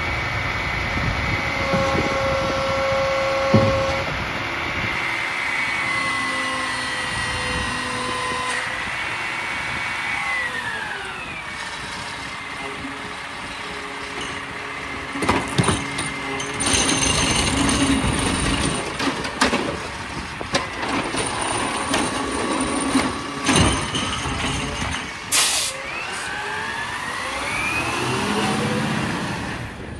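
Peterbilt 520 side-loader garbage truck with a ZR body working its automated arm: the engine is held at high revs to drive the hydraulics, then drops back as the arm lowers. Clanks and bangs follow as the cart is set down and the grabber releases, with a sharp hiss about 25 seconds in and the engine revving up again near the end.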